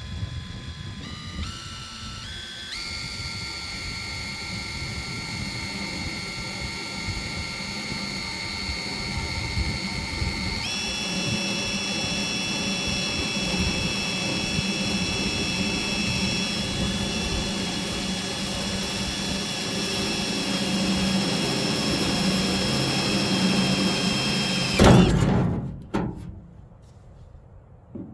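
A high-speed power tool cutting the sheet steel of a truck bed, giving a steady high whine. The whine steps up in pitch several times in the first three seconds and again about ten seconds in, then stops abruptly with a loud clunk about 25 seconds in.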